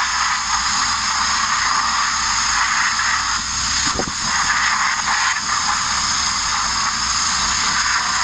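Abrasive media blaster hissing steadily as it blasts the steel bodywork of a Mk1 Ford Transit van, with a brief dip and a knock about four seconds in.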